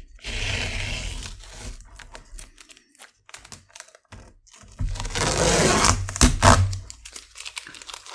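Masking tape being peeled off watercolour paper and crumpled, in two spells of crinkling and tearing with scattered small clicks between.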